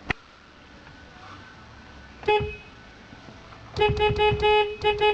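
Car horn honking: one short toot about two seconds in, then a string of rapid honks running into one another near the end.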